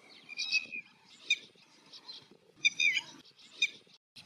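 Red-wattled lapwing calling: about four bursts of high-pitched repeated calls spaced roughly a second apart.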